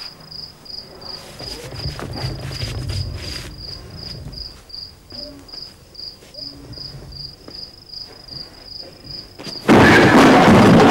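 Cricket chirping steadily, a short high chirp about three times a second. Near the end a sudden loud rushing noise breaks in and drowns it out.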